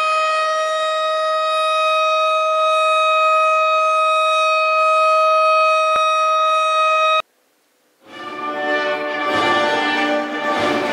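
A steady siren tone of one unchanging pitch, sounded for a commemorative moment of silence, held for about seven seconds and cutting off suddenly. After a second's hush, recorded choir and orchestra music begins.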